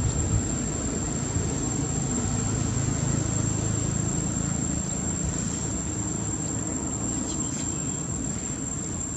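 Steady high-pitched insect drone over a low, steady rumble.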